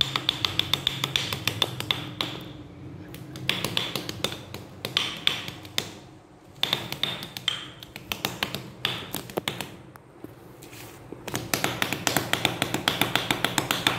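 Two wooden drumsticks clacking together in fast, even runs of about seven strokes a second, broken by short pauses.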